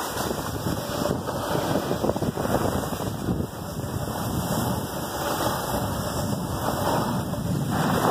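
Wind buffeting the microphone over the steady scraping hiss of a snowboard sliding and carving on packed snow during a downhill run.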